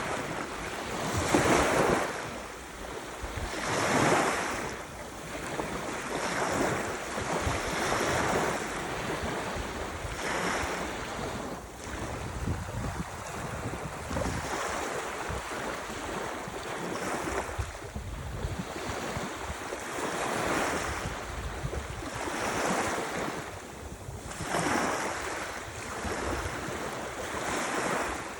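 Ocean waves breaking and washing on the shore, the surf swelling and falling back every two to three seconds.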